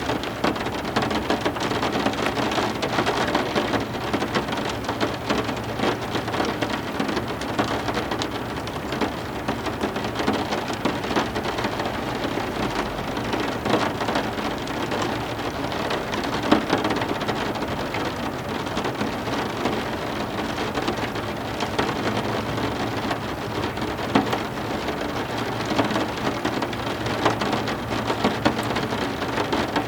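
Steady heavy rain with dense patter of drops, and a low rumble of thunder coming and going underneath.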